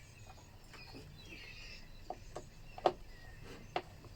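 A few light clicks and knocks from small parts of a leaf blower being handled and checked on a workbench, the sharpest just before three seconds in. Faint bird chirps in the background.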